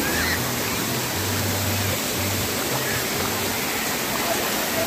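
Steady rushing hiss of water spraying and splashing from the fountains and jets of a water park splash-play tower.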